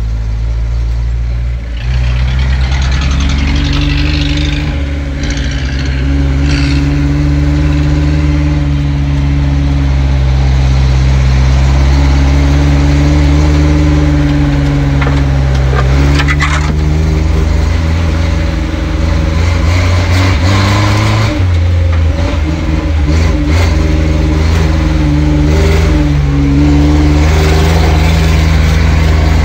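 Off-road 4x4's engine running under load while driving through mud, heard from inside the cabin, its pitch rising and falling with the throttle. Short knocks and clatters come through now and then, most of them after the middle and toward the end.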